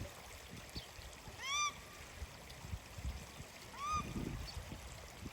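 A bird giving two short calls about two and a half seconds apart, each rising then falling in pitch, over an uneven low rumble.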